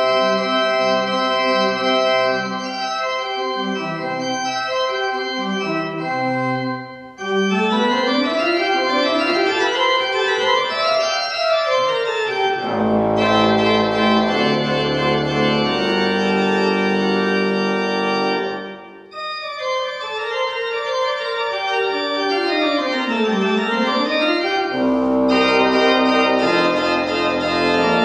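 Church organ playing a piece with fast runs of notes climbing and falling, and held low bass notes in the middle. The music breaks off briefly twice, about seven and nineteen seconds in.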